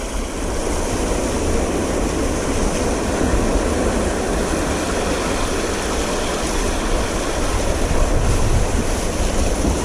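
Sea waves washing steadily against the shore, with wind buffeting the microphone.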